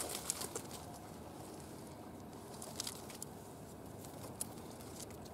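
Faint rustles and a few sharp, scattered clicks from clothing and gear being handled, over a steady low hiss.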